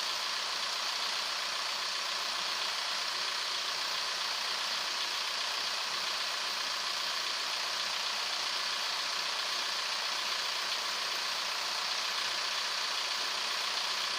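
Audi A3 1.9 TDI four-cylinder diesel idling steadily while it warms up, its freshly resealed injection pump not yet set for timing and fuel quantity.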